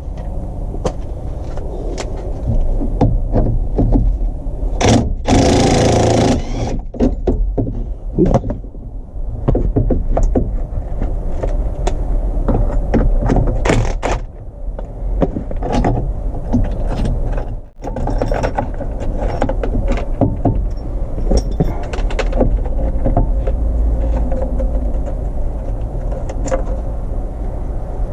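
Hand tools clicking, knocking and clunking on a 1997 Jeep Wrangler TJ's steering column as the steering wheel is taken off, with a brief harsh rasping burst about five seconds in. A steady low rumble lies underneath.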